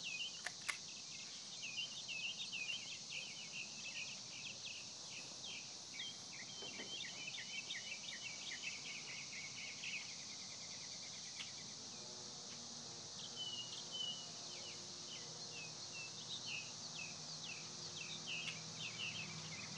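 Outdoor ambience: small birds chirping in quick, irregular calls over a steady high-pitched hiss. A faint low hum joins about twelve seconds in.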